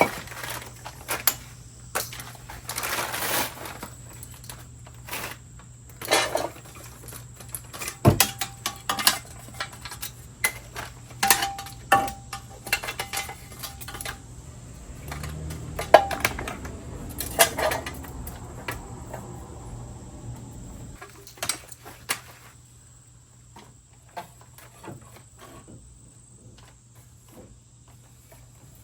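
Metal parts and hand tools clinking and clanking during work on a truck wheel hub and its dust shield. There are scattered taps and knocks, some with a brief metallic ring.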